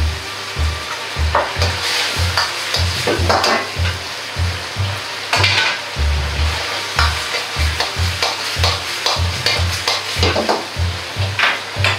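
A metal ladle stirs and scrapes sweet-and-sour chicken around an iron wok over a high gas flame, the sauce sizzling, with repeated sharp scrapes. A steady low beat runs underneath.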